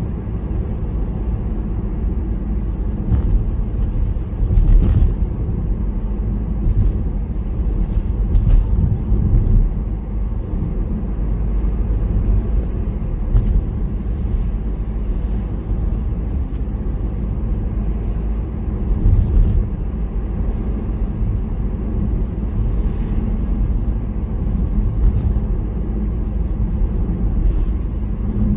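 Car driving on city streets: a steady, low road and engine rumble, with a few brief, faint knocks scattered through it.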